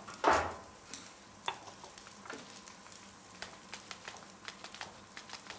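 Food crackling and sizzling in a hot pan on a stove, with scattered irregular pops, after a single loud knock about a quarter second in.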